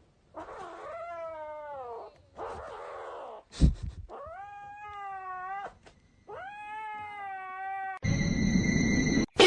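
A cat meowing: three long, drawn-out meows, the first sliding down in pitch. A sharp knock comes between the first and second meows, and a loud, noisy sound starts near the end.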